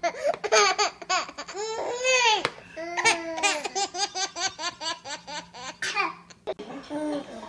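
A toddler laughing hard: high-pitched squealing laughter, then a long run of quick rhythmic laugh pulses, about five a second, easing off to a few softer laughs near the end.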